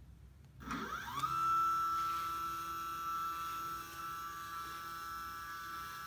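Stepper motor of a DIY CNC machine jogging the X axis. Its whine rises in pitch about half a second in as the motor speeds up, then holds steady while the axis travels at a slow feed rate.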